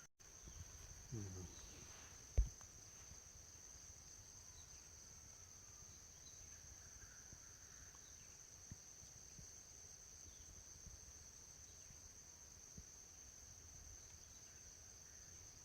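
Steady, high-pitched drone of a forest insect chorus, with one brief thump about two seconds in and a few faint ticks later.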